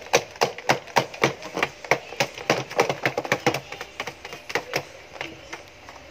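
Shih Tzu scratching and digging at the bedding in a plastic tub, a quick run of scratches about three to four a second that thins out after about four seconds. This is nesting behaviour, a sign that she is in labour.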